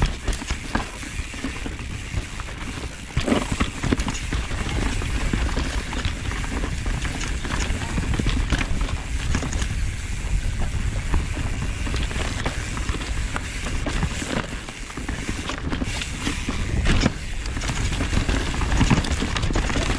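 Mountain bike riding down a rough dirt trail: steady wind and tyre noise, with the bike rattling and knocking over bumps.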